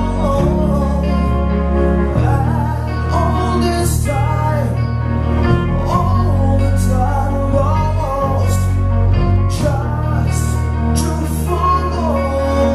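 Live rock band playing: a male lead singer sings over keyboards, electric guitar, bass guitar and drums, with cymbals crashing every second or two.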